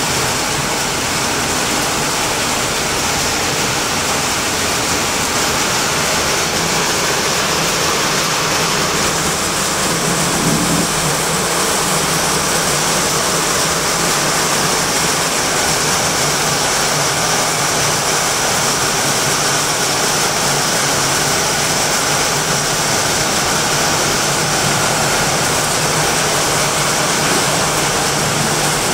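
Torrential rain pouring down, a loud and steady rushing hiss.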